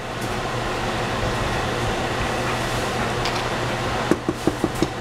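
A steady whirring noise with a low hum under it. About four seconds in come a quick run of about six light knocks as a wooden spatula taps against the pan of stew.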